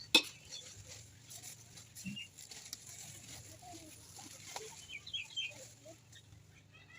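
A sharp knock just at the start, then faint farmyard animal calls: scattered short bird-like chirps and a few low clucks.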